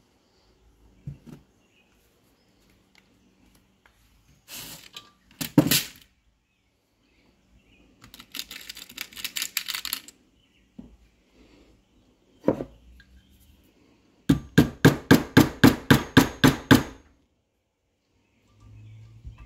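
A nail being hammered into a wooden rod with a Nikon Z9 camera body instead of a hammer: a few single knocks and some clattering, then a fast run of about a dozen sharp blows, about four to five a second.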